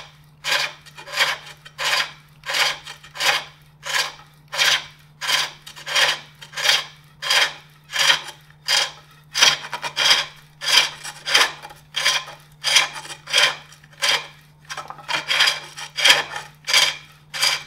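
Hook tool cutting the inside of a wooden bowl on a foot-powered pole lathe: a rasping scrape with each treadle downstroke, about three strokes every two seconds, with short quiet gaps as the work spins back between cuts. The cuts are going cleanly.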